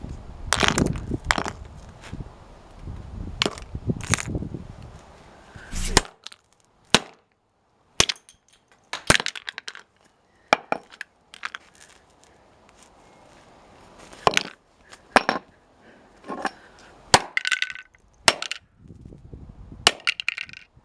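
Objects being smashed: some twenty sharp breaking impacts at irregular intervals. A low rumbling noise runs under the first strikes and cuts off suddenly about six seconds in.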